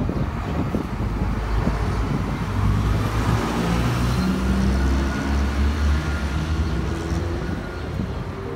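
Street traffic: a motor vehicle's engine running close by over the general hum of the road. It grows louder through the middle and eases off near the end.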